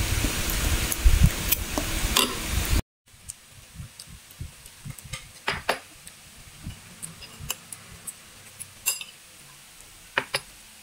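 Metal spoon clinking lightly against a ceramic bowl while eating porridge: scattered thin clicks. They follow a loud steady hiss that cuts off about three seconds in.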